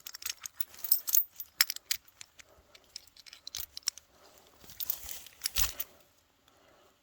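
Steel chain clinking and rattling as it is handled, in irregular metallic clinks, with a heavier clunk a little past halfway.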